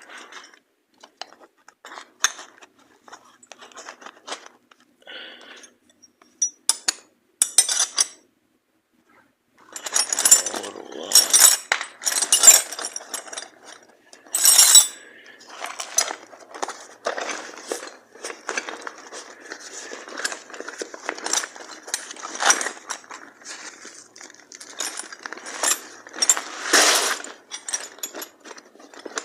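Metal hand tools, spanners and sockets, clinking and clattering as they are handled and packed away. Scattered clinks at first, a short pause, then busier clattering for the rest.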